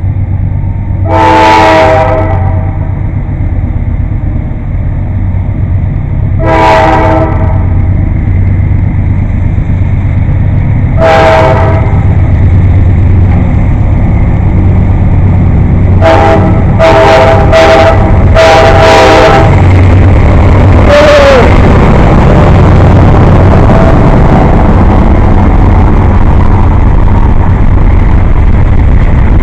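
Nathan K5LA five-chime horn on a GE C40-8 locomotive leading a freight train: three separate blasts a few seconds apart, then about halfway through a quick run of short quilled blasts and a brief note that bends down in pitch. Under it runs the steady rumble of the train's diesel locomotives, growing louder in the second half.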